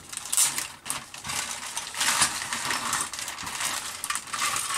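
A clear plastic bag crinkling and rustling as plastic model-kit sprues are pulled out of it, the hard plastic parts clicking and clattering against each other in irregular bursts.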